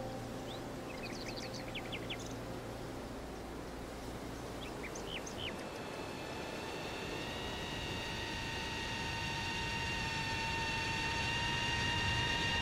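Geprc Cinelog 35 cinewhoop drone flying: a steady rush of propeller wash, joined about halfway through by a steady high-pitched electric motor whine that grows slowly louder. A bird chirps in two short runs in the first half, and the tail of background music dies away in the first few seconds.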